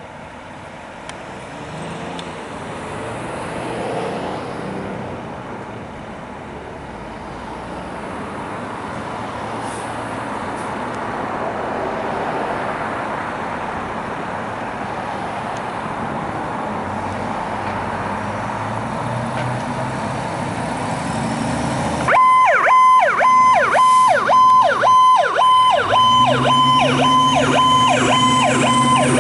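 Seagrave fire engine running as it pulls out of the station bay, its rumble growing louder. About 22 s in its sirens come on: a fast yelping electronic siren, joined near the end by a deeper steady tone and a siren rising in pitch as it winds up.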